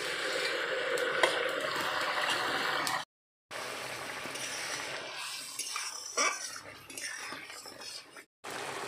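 Fish curry simmering and bubbling in a steel kadai while a long metal ladle stirs it, scraping and clinking against the pan in the second half. The sound drops out briefly twice.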